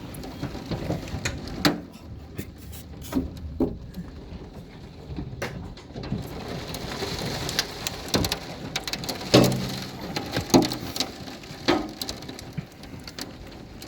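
Hail and rain pelting down, with irregular sharp cracks of individual hailstones striking hard surfaces over a steady hiss. The downpour grows heavier about halfway through.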